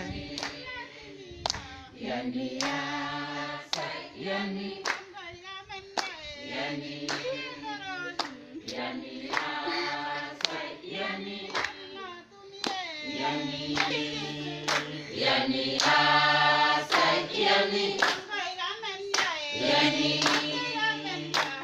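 A group of men and women singing together without instruments, with hands clapping along.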